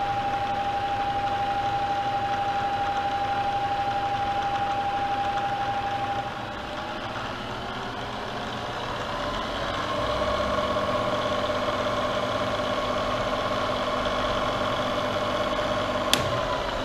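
Bridgeport variable-speed milling head running in back gear with a steady gear whine. About six seconds in the speed is changed: the whine drops, then climbs over a few seconds to a new steady pitch. Near the end there is a sharp click and the whine falls away as the spindle winds down.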